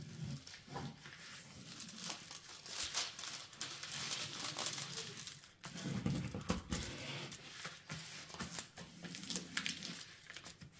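Thin clear plastic film crinkling and crackling as it is laid back over the sticky adhesive of a diamond painting canvas and smoothed down, with rustling of the canvas being handled.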